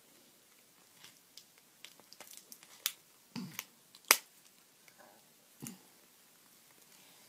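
Plastic wrapper and shell of a knock-off Kinder Joy egg being pried open by hand: scattered small crinkles and sharp clicks, the loudest a snap about four seconds in, with a couple of duller knocks.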